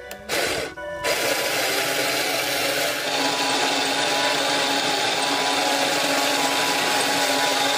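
Small DC motors of a homemade bamboo roller machine starting up when their leads are connected: a brief spin, a short stop, then a steady whirr from about a second in.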